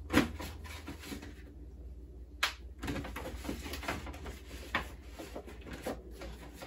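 Papers and a folder being handled at a desk: light rustling with several sharp knocks, the loudest just after the start.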